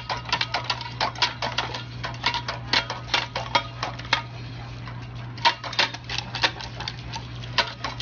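Quick, irregular clicking and splashing from dogs at a paw-pedal water fountain: a paw stepping on the plastic pedal and tongues lapping at the jet of water. A steady low hum runs underneath.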